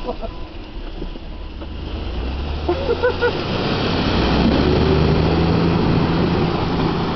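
Four-door Jeep Wrangler driving through a mud hole, its engine pulling under load while the tyres churn and sling mud and water. The sound builds from about two seconds in and stays loud to the end. A brief shout comes around three seconds in.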